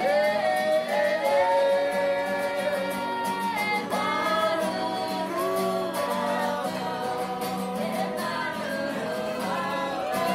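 Women singing a Polynesian song to a strummed acoustic guitar.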